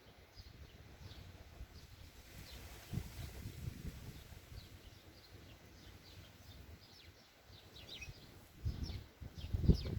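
Small birds chirping with many short, repeated calls, busier in the second half. Wind buffets the microphone in low rumbling gusts, around three seconds in and loudest near the end.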